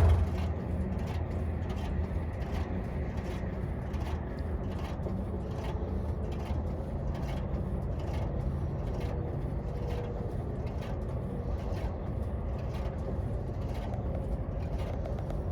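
Farmall tractor engine running steadily, a low hum with faint regular ticks.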